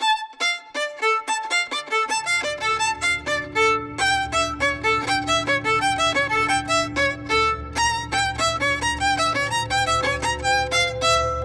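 Background music: a fast melody of short, detached violin notes, joined by a low bass about two seconds in.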